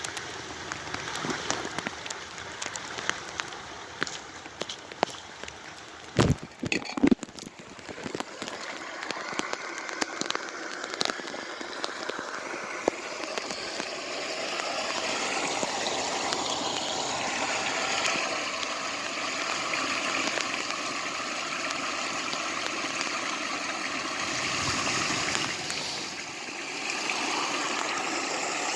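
Rain falling with running water, a few sharp knocks about six to seven seconds in; about twelve seconds in the water becomes a steadier, louder rush, as of water pouring into a cleared storm drain.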